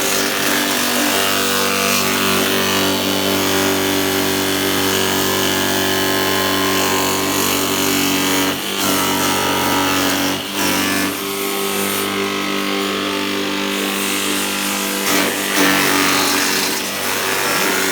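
Motor-driven chopping machine for banana stems, vegetables and grass running with a steady hum, broken by a few brief knocks and dips in level around the middle and near the end.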